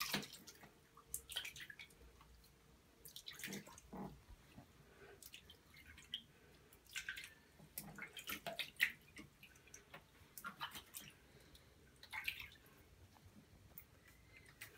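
Water splashing and dripping in a plastic baby bath as a newborn is washed by hand: small irregular splashes and trickles with quiet gaps between them.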